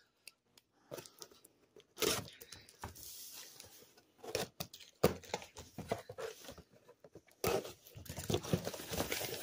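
Shipping packaging being handled and torn open while a box of comics is unpacked: irregular crinkling, tearing and light knocks, sparse at first and busier from about seven and a half seconds in.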